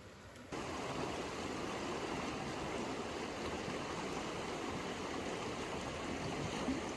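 Steady rushing of a flowing stream, which comes in abruptly about half a second in and then holds even.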